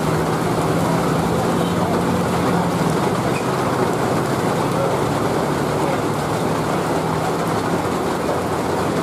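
Heavy rain hissing steadily on the road, with a car engine running at steady revs underneath, dipping for a moment midway.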